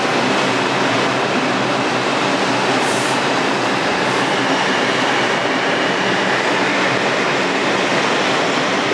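R142 subway train with Alstom ONIX propulsion pulling out of the station and picking up speed, its cars running close past: a loud, steady rush of wheels on rail and car noise.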